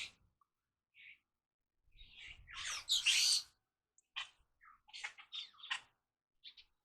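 Birds calling: a string of short, harsh chirps, the loudest run about two to three and a half seconds in, then a quicker cluster of short calls near the end.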